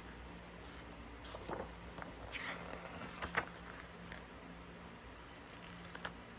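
Pages of a hardcover photobook being turned and handled: a few soft rustles and taps of heavy paper, the sharpest a little over three seconds in, over a faint low hum.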